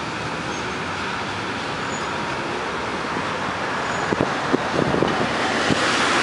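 Street traffic with a two-car tram running past: a steady rush of tyres and engines, a few sharp clicks and knocks about four to six seconds in, and a passing vehicle growing louder near the end.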